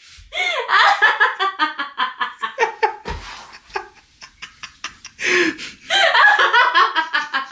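A laugh attack: uncontrollable laughter in rapid, rhythmic bursts. It comes in two bouts with a short quieter lull midway.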